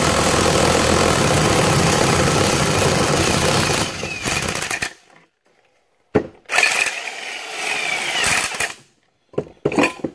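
Electric ratchet running, turning the screw of a homemade puller to draw the pulley off a GM power steering pump shaft. It runs steadily for about five seconds, stops, then runs again for a couple of seconds, followed by a few clanks near the end.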